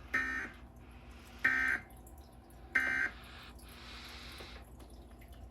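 Emergency Alert System end-of-message tones: three short bursts of warbling digital data, about a second and a half apart, marking the close of the EAS test message.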